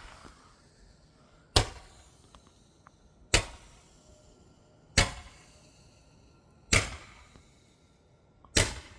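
Miracle 10-ball Roman candle firing color comets: five sharp pops, one about every second and three-quarters, each trailing off briefly.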